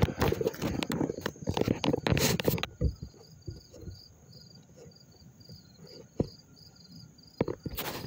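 A cricket chirping steadily, about three short high chirps a second. Loud rustling noise covers the first couple of seconds and returns briefly near the end.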